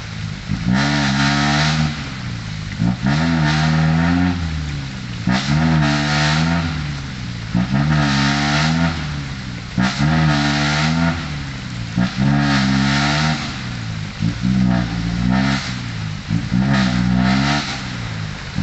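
Diesel six-wheel dump truck engine revved hard again and again, about eight or nine rises and falls roughly two seconds apart, each with a rush of noise. The truck is stuck, trying to pull out of soft, rain-soaked ground.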